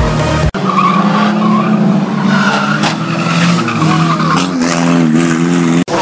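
Banger race cars running on an oval track, engines droning with tyres squealing and skidding. A brief dropout about half a second in cuts off music, and the sound drops out again briefly near the end.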